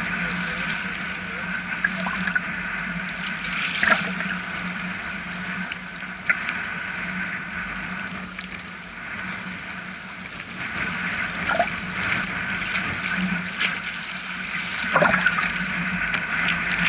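Small sea waves lapping and washing around a wading angler's legs, with a few sharper splashes, the clearest about four seconds in and near the end.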